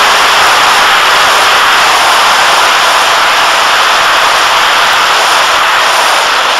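Steady rush of air and the electric motor and propeller of an EFX Racer foam flying wing in fast flight, picked up on its onboard camera's microphone. It eases slightly near the end.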